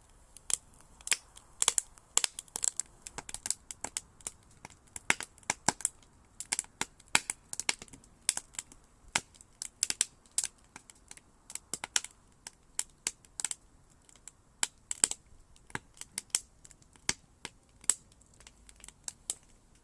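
Campfire of burning logs crackling, with irregular sharp pops and snaps, often several a second.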